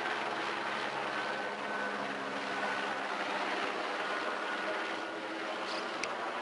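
Airbus Helicopters Esquilo helicopter flying low overhead: a steady rotor and turbine sound with a thin high whine running through it.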